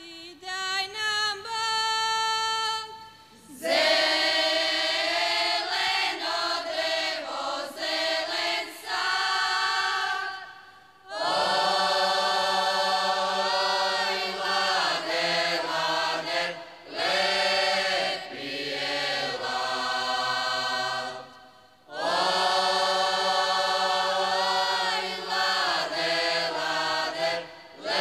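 Croatian folk song sung unaccompanied by a mixed group of men and women. A single voice holds the opening notes, and about three seconds in the whole group joins. The group sings in long sustained phrases with short breaks between them.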